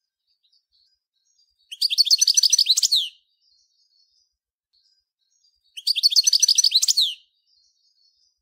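European goldfinch singing: two short phrases of rapid, twittering high notes, each about a second and a half long, the second about four seconds after the first.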